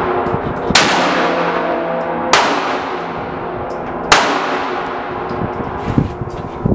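Three gunshots fired in steady succession, roughly a second and a half to two seconds apart, each trailing off in a long echo.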